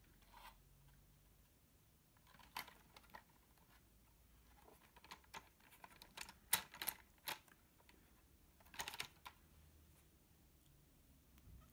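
Faint scattered clicks and taps of a plastic 1:18 scale RC toy car being handled and turned over in the hands, over quiet room tone.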